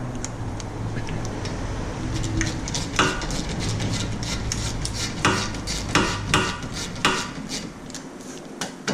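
Ratchet wrench clicking in short bursts with metal clinks, tightening the 12 mm bolt on a front brake caliper. A low steady hum runs underneath and fades near the end.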